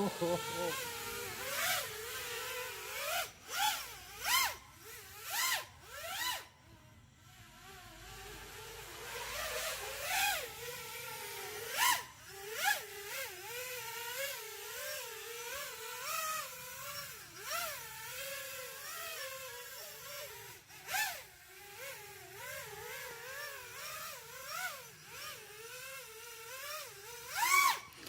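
A 5-inch FPV racing quadcopter's Mr. Steele Silk brushless motors and Ethix propellers whining in flight, the pitch wavering up and down constantly with throttle. There are several short, louder surges and a brief lull a few seconds in.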